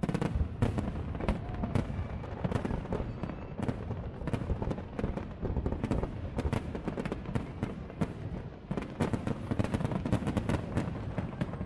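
Fireworks display: aerial shells bursting one after another in a rapid, continuous volley of bangs and crackles, coming most thickly near the end.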